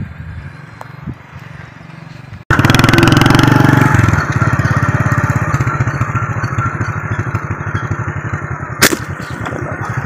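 Small motorcycle engine running close by, with a rapid, even firing beat. It starts abruptly about a quarter of the way in and is loudest for the first second and a half. A sharp click comes near the end.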